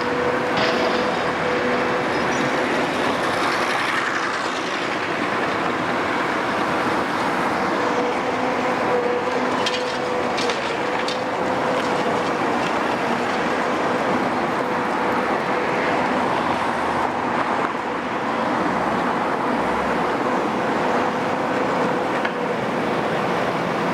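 Caterpillar M322C MH wheeled material handler running steadily, its Caterpillar 3056E diesel engine carrying a constant high whine, with a few sharp clacks about ten seconds in.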